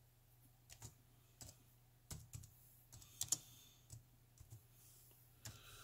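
Faint, irregular keystrokes on a laptop keyboard as a short name is typed, about a dozen taps with uneven gaps, the loudest pair a little past the middle.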